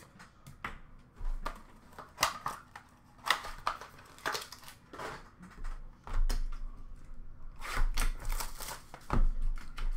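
Hands handling trading cards and card-pack wrappers in a plastic bin: irregular clicks, taps and rustles, with a longer crinkling rustle about eight seconds in.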